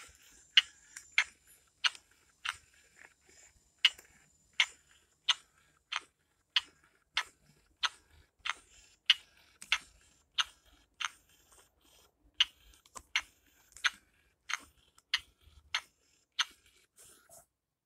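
Baby Alive Learn to Potty doll's electronic sucking sound played through its small belly speaker while a pacifier sits in its mouth. It is a run of short, smacking clicks, about three every two seconds.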